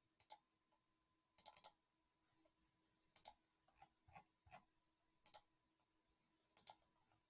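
Faint computer mouse clicks, scattered every second or so and often in quick pairs like double-clicks.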